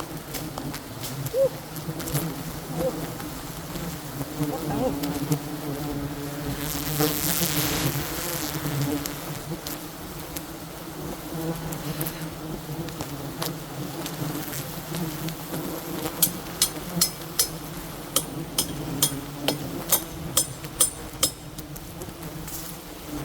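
A swarm of wild honey bees buzzing in a steady low hum. In the second half, a run of about a dozen sharp knocks, two or three a second, sounds over the buzzing.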